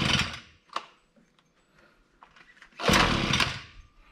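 Two pull-start attempts on the small engine of a Koshin EP-10P engine-powered sprayer, each a loud burst of about a second that dies away, the second about three seconds in; the engine does not keep running, the hard restart the owner is struggling with.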